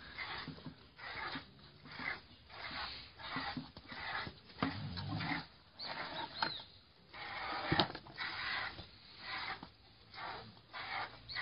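Piglet suckling at a cow's udder: rhythmic sucking and smacking noises about twice a second, with one sharp click about eight seconds in.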